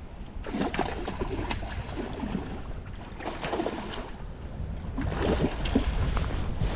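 Wind rumbling on the microphone over moving river water, with irregular splashing.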